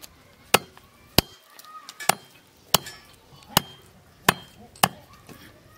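A knife chopping raw duck on a wooden log used as a chopping block: seven sharp chops at uneven intervals, about one every two-thirds of a second.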